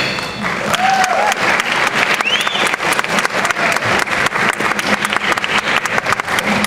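Audience applauding after a choir song, with a couple of short whoops from the crowd.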